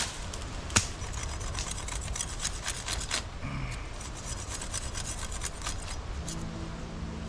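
A large knife sawing and scraping through a green palm-frond stalk: a run of short rasping strokes, after a sharp snap about a second in. Low music comes in near the end.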